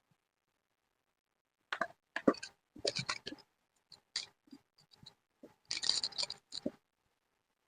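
Scrapbooking materials being handled: a series of short clicks and rustles with dead gaps between them, the longest and loudest rustle about six seconds in.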